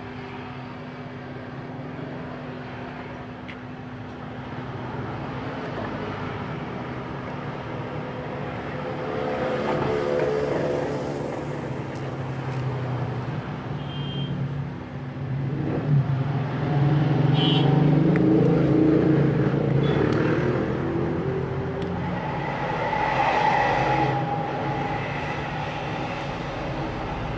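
Motor vehicle engines swelling and fading as they pass, loudest about two thirds of the way through, over a steady low hum.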